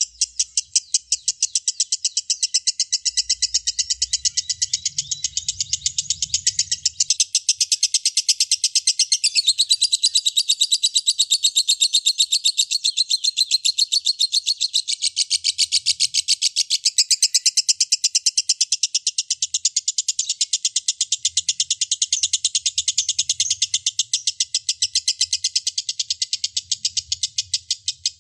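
Lovebird singing a long 'ngekek': a fast, unbroken chatter of sharp, high chirps repeated several times a second, going on without a pause.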